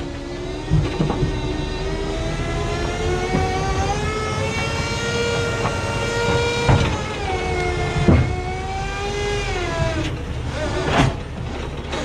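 A heavy machine's diesel engine runs steadily, its pitch rising and falling slowly as the machine moves, with several sharp metal clanks.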